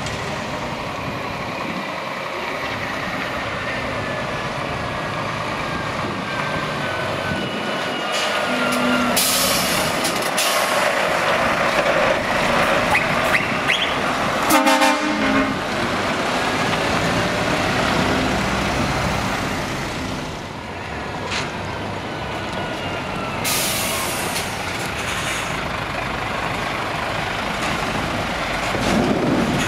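Heavy lorries driving slowly past one after another, their diesel engines running, with two hisses of air brakes and a short horn blast about halfway through.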